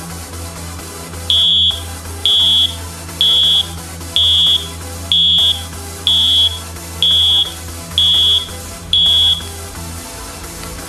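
Piezo buzzer of a homemade Arduino alarm clock sounding its alarm: nine short, high-pitched beeps about a second apart, over background music.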